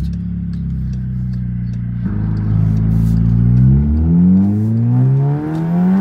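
Turbo-swapped Volkswagen Jetta GLI (MK6) four-cylinder engine heard from inside the cabin, holding a steady note for about two seconds, then pulling hard under full throttle with its pitch rising. The pitch drops at an upshift about four seconds in, then climbs again.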